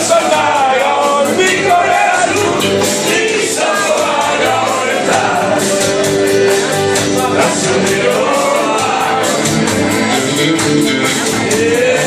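Live band music with accordion and guitar playing a steady, quick beat while a man sings into a microphone.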